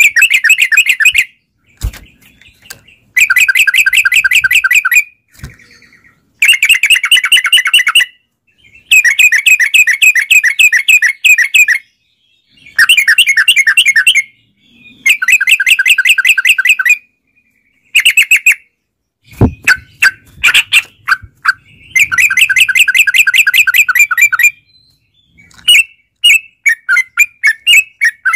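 Yellow-vented bulbuls (trucukan) singing in fast bubbling phrases of rapidly repeated notes, each phrase lasting one to three seconds with short pauses between. Near the end the song breaks into scattered separate notes.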